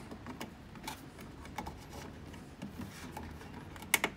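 A releasable plastic zip tie being worked around a small part by hand: faint rubbing and handling, then a quick run of ratchet clicks near the end as the tie is pulled tighter.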